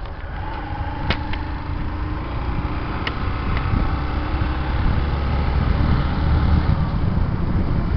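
Motorcycle riding along a street: the engine running steadily under a heavy low rumble of wind on the microphone, a little louder in the second half. Two short clicks are heard, about one and three seconds in.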